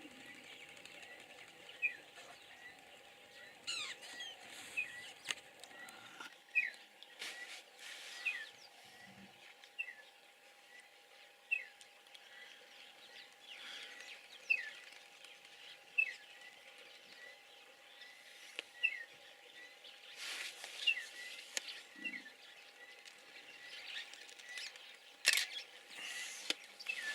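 Birds calling with short, sharp, repeated chirps, roughly one a second, over a faint steady hum. There are two brief faint low sounds, one about a third of the way in and one near the end.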